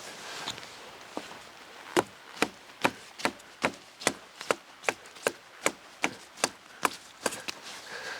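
A knife chopping into a dry, dead cedar: after a little rustling, a steady run of about fifteen sharp wooden strikes, about two and a half a second.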